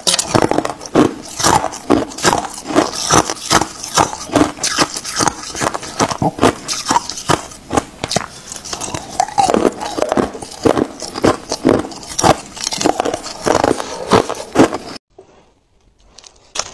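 Hard, clear ice being bitten and crunched between the teeth close to the microphone: a dense run of sharp cracks and crunches that breaks off abruptly about two seconds before the end.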